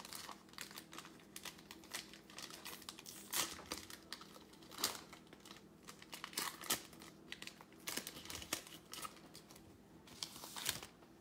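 Plastic wrapper of a trading card pack crinkling in irregular rustles as it is handled and torn open.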